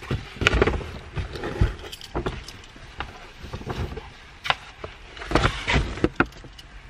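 Shoes being handled and set down: scattered knocks and clicks with rustling between them, the louder knocks near the start and again about five to six seconds in.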